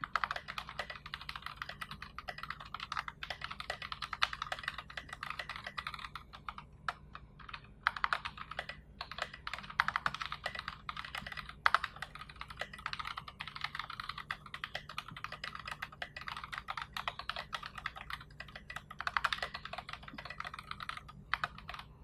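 Fast typing on a mechanical keyboard with Box Royal tactile switches, SA-profile keycaps and a 3 mm acrylic plate in an acrylic case: a steady stream of clacking keystrokes with a few short pauses and some louder strikes, stopping just before the end.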